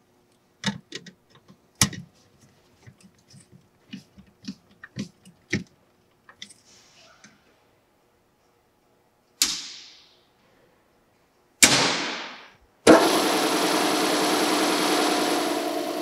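Small tool clicks and taps, then two loud clacks that each ring out over about a second. Then the Colchester lathe's 7.5 hp three-phase induction motor starts abruptly and runs steadily with a whirring hum through its belt drive, on freshly replaced bearings.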